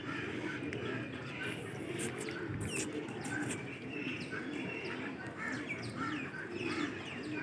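A flock of caged birds chirping busily, over a low cooing that repeats about twice a second, like pigeons or doves. A few sharp clicks come in the middle.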